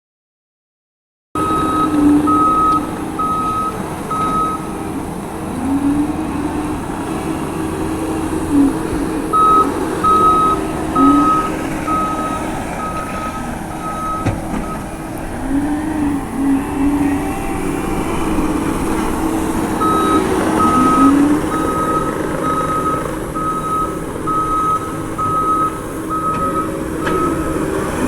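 Heavy construction machine working: its diesel engine runs steadily, its pitch swelling and dropping again and again under load. Its reversing alarm beeps at an even pace in three separate spells as it backs up.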